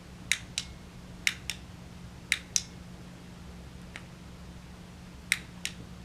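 Tactical flashlight's switch being clicked on and off: four pairs of sharp clicks, the two clicks of each pair a quarter of a second or so apart, with one faint click between.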